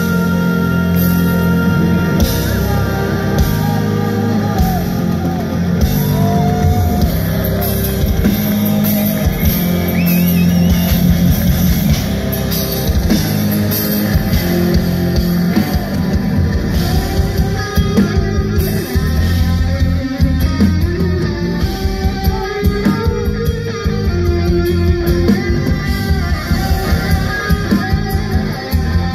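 Live heavy metal band playing loud: distorted electric guitar, bass guitar and drum kit, with a woman's voice singing in parts.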